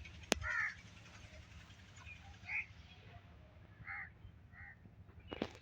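Crow cawing: four short harsh calls spread over a few seconds, with a sharp click just before the first call and another near the end.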